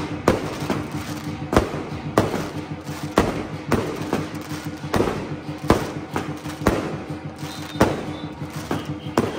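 Aerial firework shells going off in quick succession, a sharp bang with a short echoing tail more than once a second, over steady background music.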